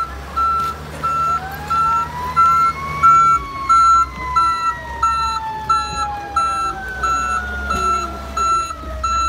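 Ambulance reversing alarm beeping about twice a second over a low engine hum, while a siren winds up for about two seconds and then slowly falls away.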